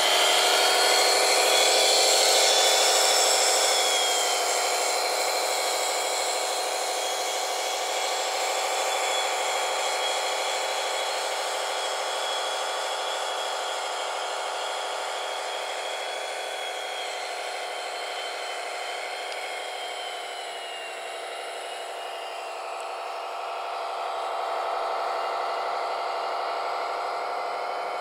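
Radio-controlled tipper truck's electric drive motor and gearbox whining steadily as it drives through mud, with a thin high whine on top. It fades a little through the middle and grows louder again near the end.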